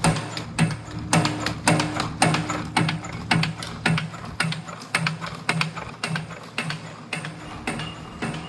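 Camless CNC torsion spring machine coiling and cutting clothespin springs, giving a regular clack about twice a second over a steady motor hum.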